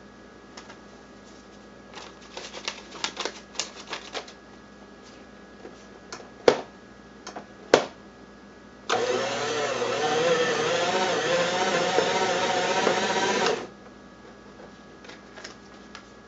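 Fellowes paper shredder running for about four and a half seconds as it shreds paper, its motor note wavering, starting and stopping abruptly. Before it come a few light clicks and two sharp clicks.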